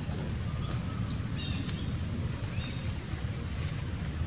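Short high-pitched animal chirps, some swooping, about once a second over a steady low outdoor rumble.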